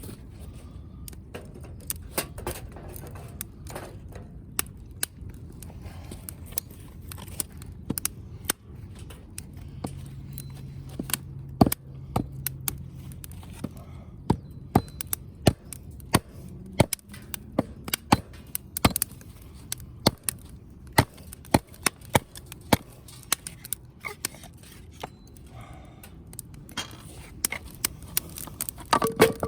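Wood fire crackling, with sharp irregular pops and snaps over a low steady rumble.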